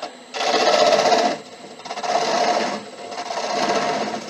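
Turning tool shearing light finishing cuts across a spinning monkey puzzle wood bowl on a lathe, in three passes of about a second each with short pauses between.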